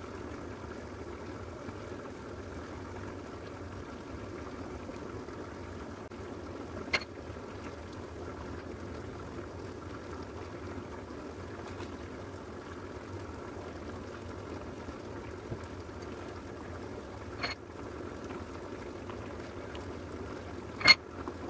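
Steady low kitchen background noise, like a pot simmering, with three sharp clicks as skewers, cheese and quail eggs are handled on a wooden cutting board, the last click the loudest, near the end.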